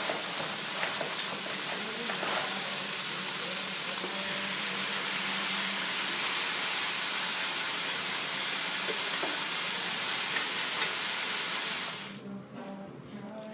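Chicken and onions frying in a skillet, a steady sizzle that cuts off sharply about twelve seconds in.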